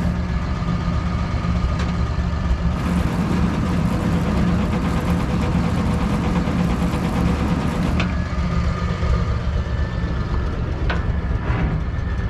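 1941 Chevrolet army wrecker truck's engine idling steadily, with two short sharp knocks about eight and eleven seconds in.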